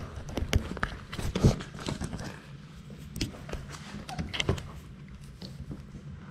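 Irregular knocks, taps and rubbing from Labrador puppies nosing, pawing and mouthing a GoPro camera on the floor, with a few louder knocks.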